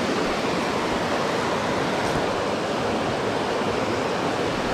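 Steady rush of creek water running high.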